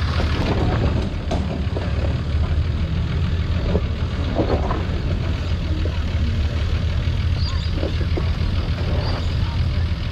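Off-road 4WD's engine running steadily at low revs while the truck backs down a steep dirt hill climb after failing to make the top.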